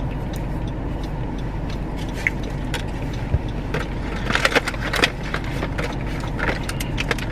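Steady low rumble of a car idling, heard from inside the cabin, with a run of sharp crackling clicks about four to five seconds in.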